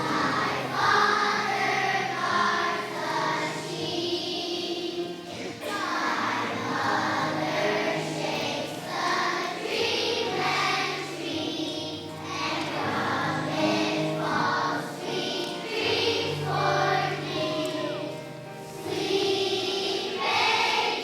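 Young children's choir singing a song in unison, phrase after phrase, over an instrumental accompaniment with held bass notes.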